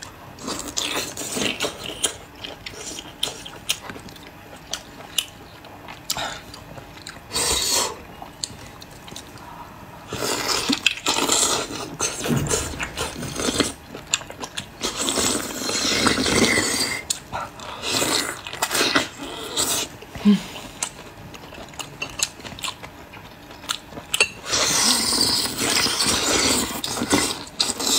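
Close-miked eating sounds: wet chewing, sucking and slurping on a thawed frozen persimmon and a soft ring-shaped food dipped in sauce. They come in irregular bursts with small mouth clicks between, the longest, loudest bursts near the middle and near the end.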